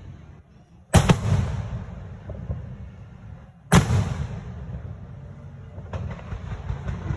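Aerial fireworks shells bursting: two loud booms, about a second in and nearly four seconds in, each echoing away. Near the end comes a run of smaller rapid crackling reports.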